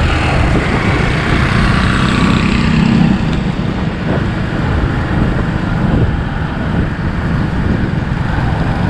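Steady engine and road noise of a moving motorcycle, with wind noise on the microphone.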